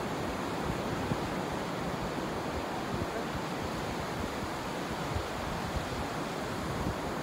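Steady wash of surf on a beach, with wind buffeting the microphone in low, irregular rumbles.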